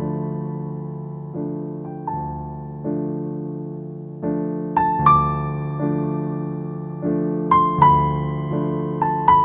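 Background music: a slow piano or electric-piano piece, chords struck roughly once a second and left to ring and fade, with a simple melody on top.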